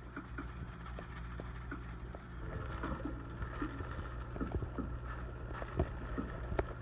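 Scattered light taps and clicks of handling, with some rustling, over a steady low hum.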